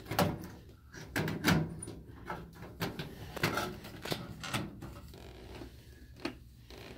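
LED tube bulbs knocking and clicking against a ceiling fluorescent fixture's metal housing and end sockets as they are fitted by hand: a string of irregular sharp taps and rattles.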